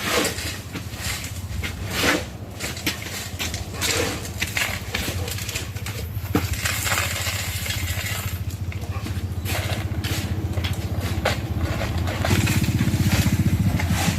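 An engine running steadily, with many short knocks and clatters over it. About twelve seconds in, the engine gets louder with a fast, pulsing beat.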